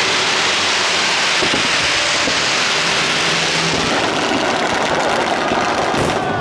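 Fireworks crackling in a dense, continuous hiss like heavy rain, from masses of crackling stars and waterline fountains going off together, with a few sharp bangs near the end.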